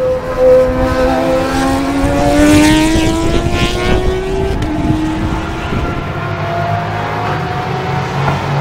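Mazda RX-8 race car's rotary engine at full throttle, its pitch rising steadily for about four seconds as it accelerates past, then fading as it pulls away.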